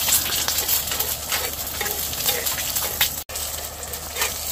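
An egg frying in oil on a round black griddle pan: a steady sizzle with many crackling pops. The sound cuts out for an instant about three seconds in.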